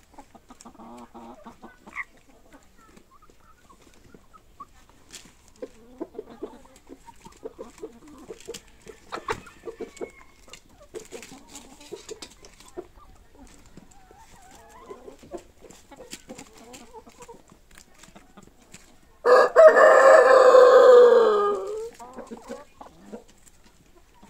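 Chickens clucking softly with scattered small clicks, then a rooster crows once, loudly, about nineteen seconds in, a call of about three seconds that drops in pitch at the end.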